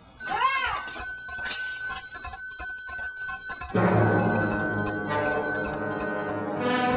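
Alarm bell of a string tripwire ringing steadily, with a few quick up-and-down warbling sweeps just after it starts. Music comes in about halfway through.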